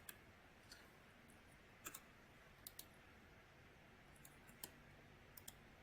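Faint, scattered clicks at a computer, about nine spread over several seconds against near silence.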